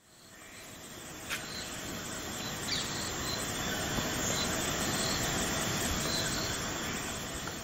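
Tropical jungle ambience fading in: a steady even hiss with faint short high chirps now and then, and a single click about a second in.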